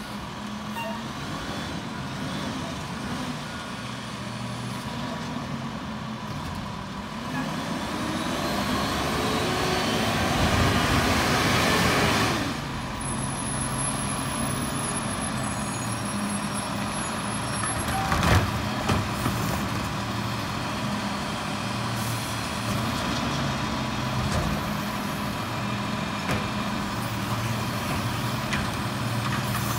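Diesel engine of a Peterbilt garbage truck with a McNeilus Autoreach side-loader, getting louder as the truck drives up and cutting back suddenly about twelve seconds in, then running steadily. There is a short sharp sound about eighteen seconds in.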